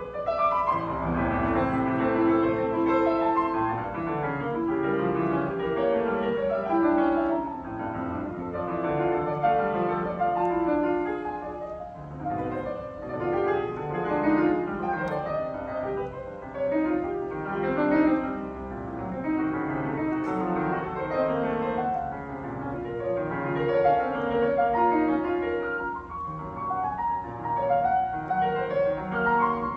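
Solo piano playing a fast, busy passage of runs and chords, its loudness repeatedly swelling and falling back.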